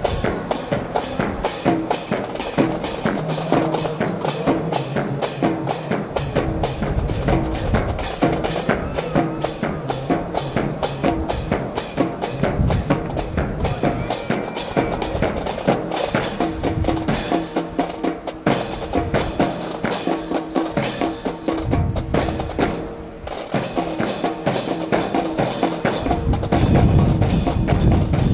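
Music with a steady drum beat, getting louder near the end.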